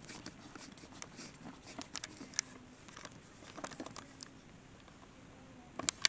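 Handling noise from a camera being fitted and screwed onto a tracking mount: faint scattered clicks and scraping, with two sharper clicks near the end.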